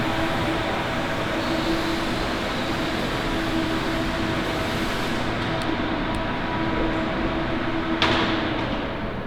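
Steady mechanical hum and hiss of running machinery, with a few held tones, and one sharp knock about eight seconds in.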